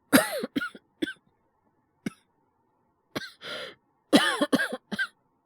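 A male voice actor coughing, acted as a cold cough: a fit of several quick coughs, a single cough about two seconds in, a drawn breath, then another fit of several coughs near the end.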